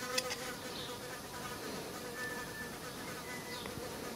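A steady buzz, with a few clicks near the start.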